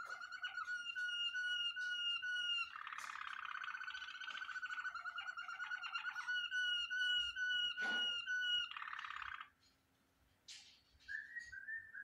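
Domestic canary singing: long rolling trills of rapidly repeated notes, broken by brief pauses, that stop about three-quarters of the way through, followed by a few short chirps near the end. A single sharp click about two-thirds in.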